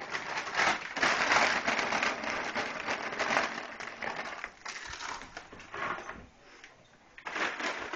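Crinkling and rustling of a Funyuns snack bag being handled, dense for the first four seconds or so, then in a few shorter rustles.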